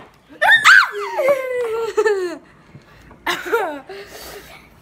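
Children laughing: one long laugh that starts high and falls in pitch over about two seconds, then a shorter laugh about three seconds in.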